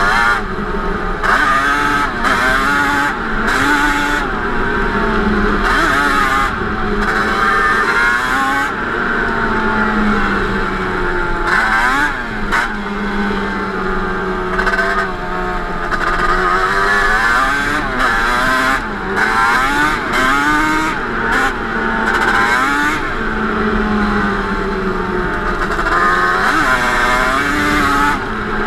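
Yamaha Banshee 350 twin two-stroke ATV engine with Toomey T5 expansion-chamber pipes, being ridden. Its pitch rises and falls again and again as the throttle is worked on and off.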